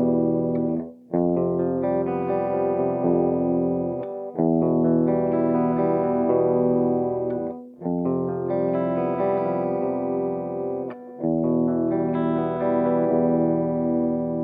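Electric guitar played through a Hynotone Cab Screamer60 power amp pedal into a guitar speaker cabinet. Chords are struck and left to ring about three to four seconds each, with a brief gap between them, four times over.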